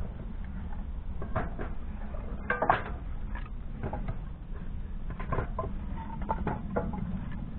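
Split firewood pieces knocking and clattering together as they are gathered off a trailer, in irregular knocks with the loudest about three seconds in, over a steady low rumble.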